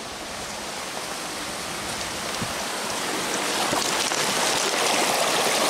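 Small rocky brook rushing and splashing over stones, growing steadily louder as it is heard close up at the water's surface.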